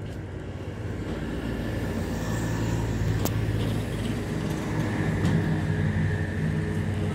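Steady low engine hum that slowly grows louder, with one sharp click about three seconds in.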